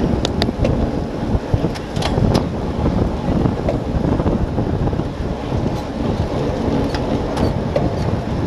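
Wind buffeting the microphone of a Garmin VIRB action camera mounted on a road bike riding at about 30 to 37 km/h, over a steady hiss of tyres on tarmac. A few sharp clicks or knocks stand out, mostly in the first couple of seconds.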